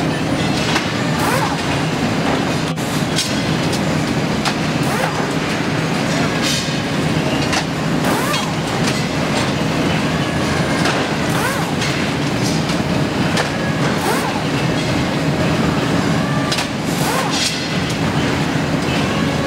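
Loud, steady factory-floor machinery noise: a constant low hum with frequent metallic clanks, short hissing bursts and brief squeals.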